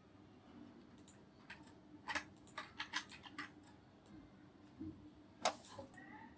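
Faint computer keyboard keystrokes and mouse clicks: a quick run of several keystrokes about two seconds in, scattered single clicks, and one louder click a little before the end.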